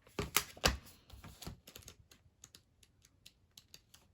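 Sticker book pages and sticker sheets being flipped through and handled: a few louder paper rustles and taps in the first second and a half, then a run of light, irregular clicks.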